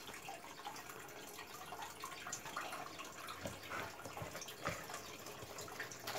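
Faint handling noise: light rustling and ticking of paper banknotes being handled close to a phone's microphone, with a few soft thumps a little past halfway as the phone is moved.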